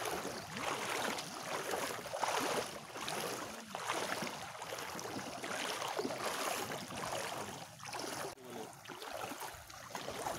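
Several people wading through shallow seawater, their feet sloshing and splashing in an uneven swish.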